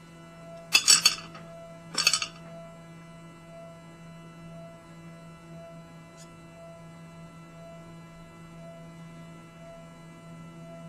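Two short clinking clatters about a second apart, then a steady electrical hum from the running micro lathe, with a faint tone that pulses about once a second.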